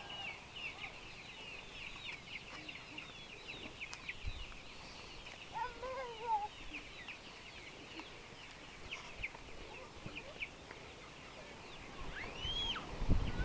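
A flock of Giriraja chickens calling: a steady stream of short high chirps, with one lower, louder call about six seconds in and a high rising-and-falling call near the end.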